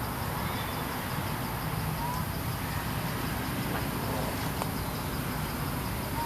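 Outdoor ambience: a steady low rumble, with a few faint short chirps and a single sharp click about four and a half seconds in.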